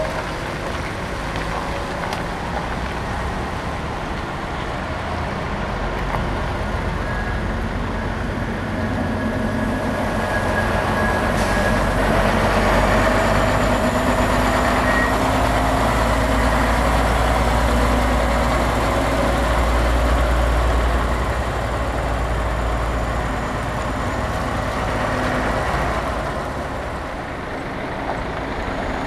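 Heavy diesel trucks running and driving slowly through a yard with a steady low engine rumble. The sound grows louder midway as a rigid box truck pulls past close by, then eases off toward the end.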